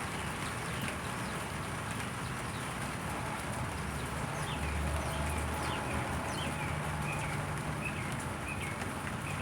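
Steady rain falling, with a small bird chirping short falling notes about twice a second in the second half. A low hum rises under it around the middle.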